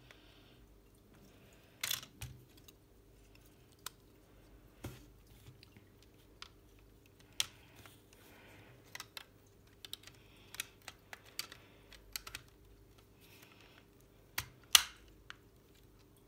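Plastic LEGO Technic parts clicking and knocking as a side panel is handled and pressed onto the buggy, its pins being pushed into the holes. Scattered sharp clicks, the loudest about two seconds in and near the end.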